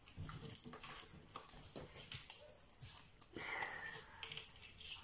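Homemade slime being kneaded and stretched by hand: a run of faint wet clicks and pops, with a brief squeak a little past halfway.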